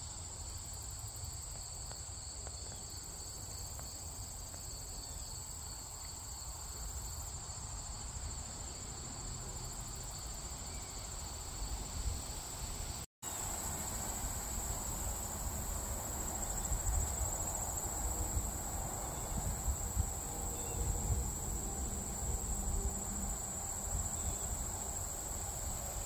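Steady chorus of insects, a continuous high-pitched trill, with a second, lower trill that drops out about halfway through. A low rumble runs underneath, and the sound cuts out for an instant about halfway.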